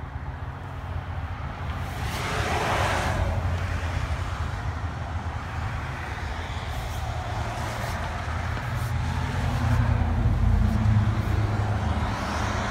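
Passing road traffic: one vehicle goes by with a swell of hiss about two seconds in, and a lower engine rumble swells near the end, over a steady low rumble.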